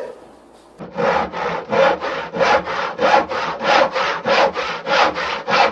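Handsaw cutting through wood in quick, even back-and-forth strokes, about three and a half rasping strokes a second, starting about a second in.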